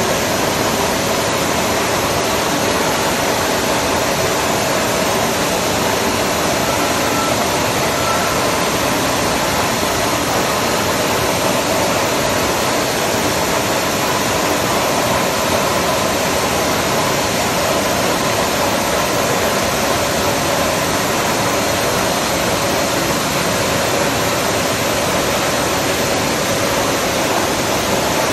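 Large machine tool with a swivelling milling head running: a steady, unchanging whooshing noise with a faint hum in it.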